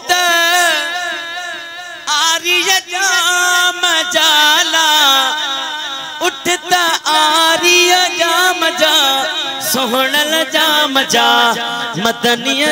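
A man sings a Sindhi devotional wahi into a microphone in long, wavering melismatic lines, the voice gliding and bending in pitch with few breaks.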